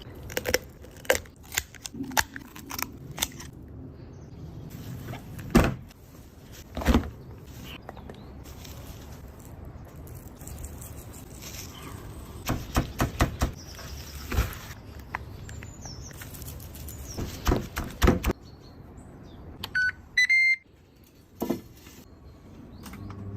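A knife chopping chicken on a cutting board: irregular sharp knocks, with quick runs of strikes about halfway through and again a few seconds later. A short high tone sounds near the end.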